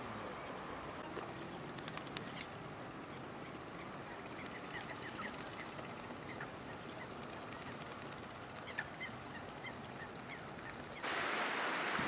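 Outdoor background noise with scattered short, high bird calls. About eleven seconds in it switches abruptly to the louder, steady rush of surf breaking over rocks.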